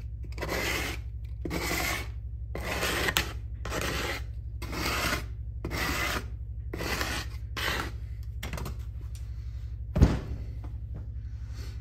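Hand sanding with a sanding disc: about eight rasping strokes, roughly one a second, then a single sharp knock about ten seconds in. A steady low hum runs underneath.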